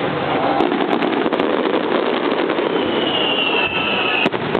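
Starmine fireworks barrage: rapid, overlapping bursts and crackling. A high whistle, falling slightly in pitch, runs from just under 3 seconds in and ends with a sharp bang near the end.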